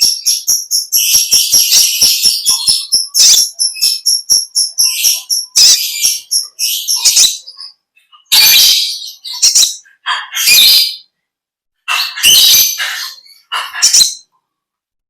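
Kolibri ninja sunbird singing its long, lovebird-like chattering song: a fast, high-pitched twittering trill for about the first three seconds, then a series of short, harsh bursts of chatter separated by brief pauses.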